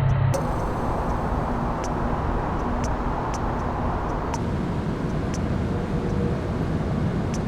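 Distant city ambience: a steady, even wash of far-off traffic noise with no close pass-bys, dotted with faint short high ticks. A different ambience with a heavier low hum cuts off just after the start.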